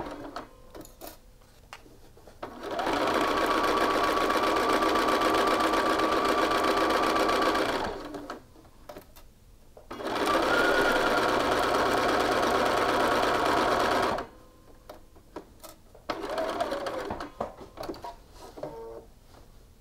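Bernina electric sewing machine stitching a seam in two steady runs of about five and four seconds, stopping in between. Small clicks and fabric handling fill the pauses.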